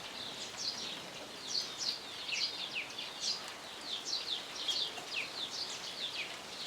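Many small birds chirping together: a dense, overlapping run of short, high chirps that slide downward, several a second, over a faint steady hiss.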